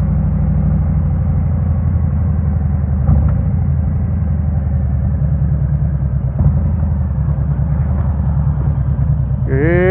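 Harley-Davidson Road King's V-twin engine running steadily with an even, low rumble, and a couple of small knocks along the way.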